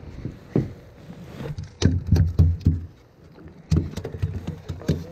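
Rummaging through a backpack lying on an aluminum boat deck: a run of irregular knocks and hollow thumps, in two bunches about two seconds in and again near four to five seconds in.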